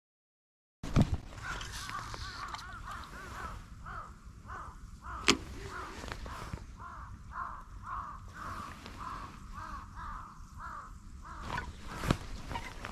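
Crows cawing over and over, about two caws a second, with a few sharp clicks: one about a second in, a louder one midway and another near the end.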